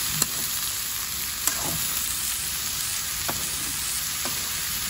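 Julienned sweet potato, carrots, chayote and green beans sizzling in a wok as a spatula stirs them, with a few light knocks of the spatula against the pan.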